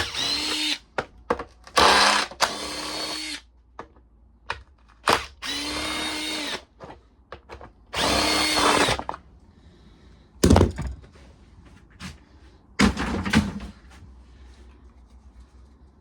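Power drill spinning a socket to back out 8 mm bolts on a lawnmower engine, in about five short steady-whining runs, followed by a couple of sharp metal knocks as parts are handled.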